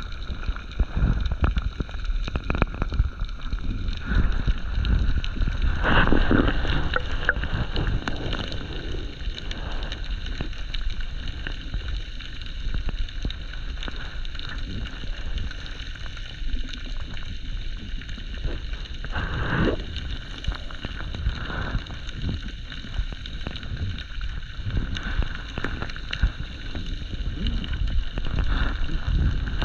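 Muffled sound of an underwater camera: an uneven low rumble with many small knocks as water moves around it, under a steady high whine of several tones. Two louder rushing swells, about six seconds in and again near twenty seconds in.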